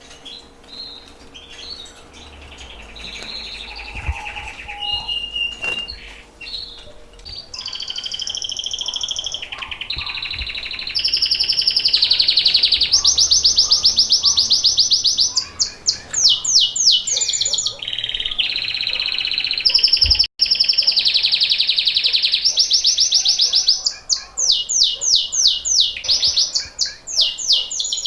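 Caged domestic canaries singing: long rolling trills and runs of fast repeated high notes, soft at first and much louder from about a third of the way in. The song of birds coming into breeding condition.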